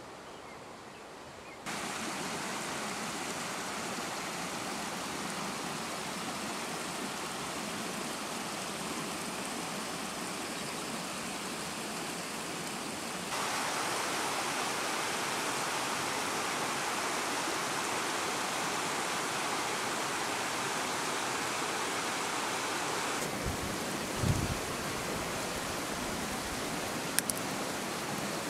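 Steady rushing of a shallow stream running over rocks, jumping abruptly louder about two seconds in and again about halfway through. Near the end a dull low thump and then a single sharp click.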